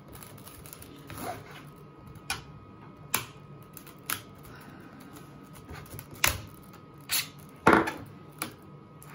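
Hard plastic CGC graded-comic case being pried apart at its seam with a flathead screwdriver: a string of separate sharp plastic clicks and snaps as the sealed halves give, the loudest near the end.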